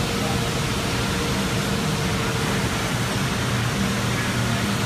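Steady hiss and low drone of DMG Gildemeister Sprint 20 Swiss-type CNC turning centres running on a machine-shop floor, with a faint steady whine that fades about three seconds in.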